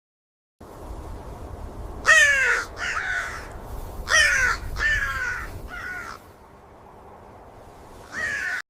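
Crows cawing: about six harsh caws falling in pitch, some in quick pairs, over a low steady rumble. The sound starts and cuts off abruptly.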